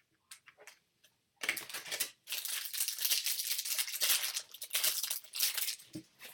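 Foil trading-card pack wrapper being torn open and crinkled, after a few light clicks, for about four seconds.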